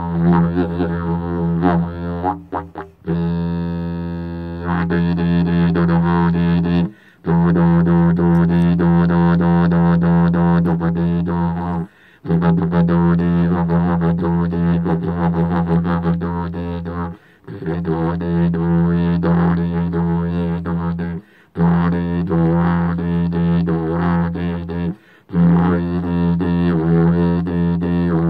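Didgeridoo played with a steady low drone and fast rhythmic pulsing worked into it. The drone breaks off in brief gaps about every four to five seconds.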